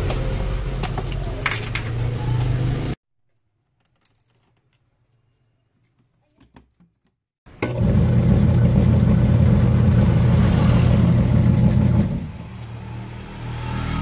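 Clicks and clatter of a washing machine's motor, pulley and rubber drive belt being handled and fitted. After a silent gap, the washer's motor runs with a loud, steady hum, turning the large tub pulley through the newly fitted belt in a test run. About four seconds later it is switched off and the sound fades as the drive coasts down.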